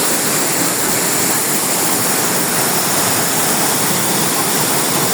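Waterfall pouring, a steady loud rush of water.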